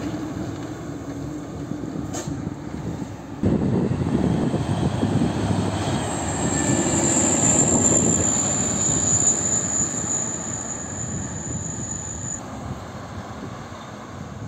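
Heavy diesel trucks driving past on a toll road: engine rumble and tyre noise, jumping suddenly louder about three and a half seconds in. A thin high whine rides over the traffic from about six to twelve seconds in.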